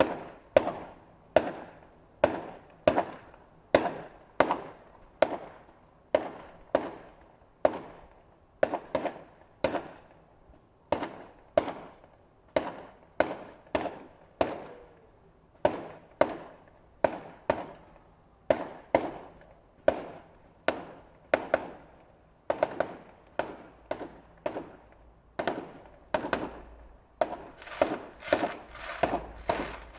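Fireworks display: a long, even run of sharp bangs, about one every three-quarters of a second, each trailing off in a short echo, coming faster near the end.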